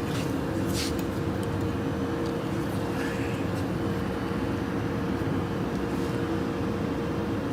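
Box tape-application machine running with a steady mechanical hum, and a short hiss just under a second in.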